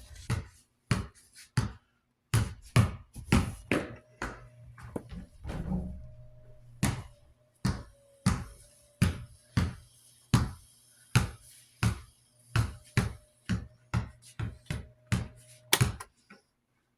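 Desk-fan motor running with a steady low hum, under a string of sharp knocks and clicks that come unevenly, about one or two a second.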